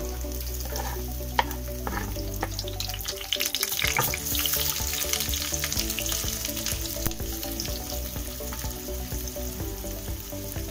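Diced onion sizzling as it fries in hot sunflower oil in a frying pan, with a wooden spatula scraping and tapping as it pushes the onion off the board and stirs it. The sizzle grows louder about three and a half seconds in.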